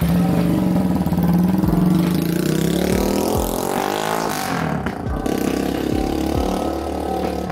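Keeway Cafe Racer 152 chopper's single-cylinder engine, loud as the bike accelerates away, its note rising, then sliding down in pitch a few seconds in as it rides off.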